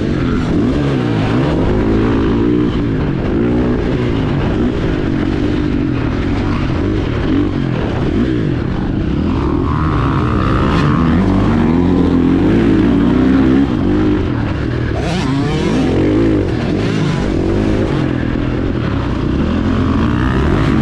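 KTM 450 SX-F's single-cylinder four-stroke engine revving hard under riding, its pitch rising and falling continuously with the throttle.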